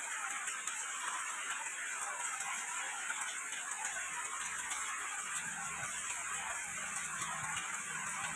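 Rain falling steadily, a dense hiss of many small drops pattering. A low rumble comes in about halfway through.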